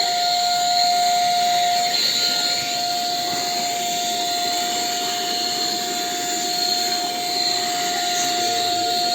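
Tiazhan handheld vacuum and air duster running steadily: a constant high motor whine over a rush of air.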